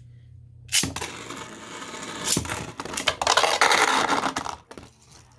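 Two Beyblade spinning tops, Zone Luinor and a 3D-printed V6, launched into a plastic stadium about a second in, then spinning and colliding with a grinding, clattering rattle and sharp hits for about four seconds. It stops abruptly near the end as the round is decided.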